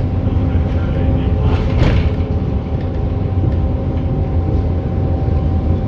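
Bus engine running steadily with a low rumble and road noise, and a short clatter about two seconds in.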